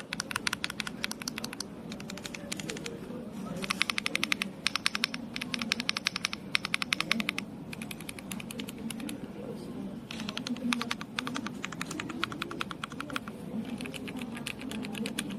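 Fast typing on an RK M75 wireless mechanical keyboard: a rapid, continuous run of key clacks, easing off in places before picking up again.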